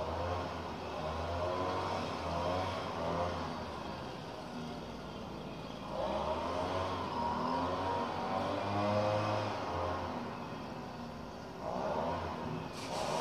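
Petrol leaf blower's small engine running, its pitch swelling and easing as the throttle is worked, with three surges: at the start, about six seconds in, and near the end.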